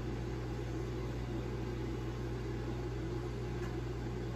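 Steady low electrical hum with an even fan-like hiss, unchanging, with no distinct events.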